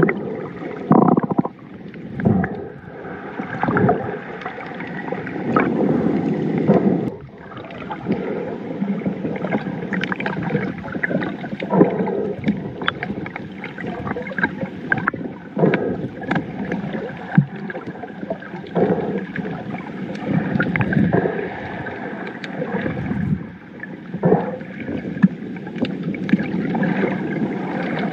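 Muffled water noise heard through a camera held underwater: water churning and bubbles, with scattered clicks and knocks throughout.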